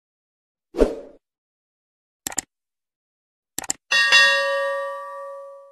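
Subscribe-button animation sound effects. A short pop comes about a second in, then two quick sets of mouse clicks, then a notification-bell ding that rings and slowly fades.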